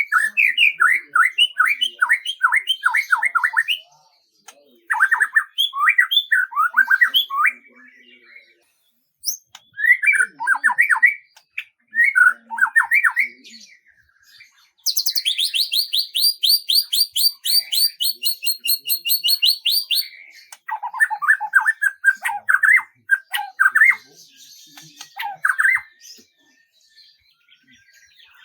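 Birds singing: bursts of quick, repeated chirps, with a high, fast trill lasting about five seconds in the middle.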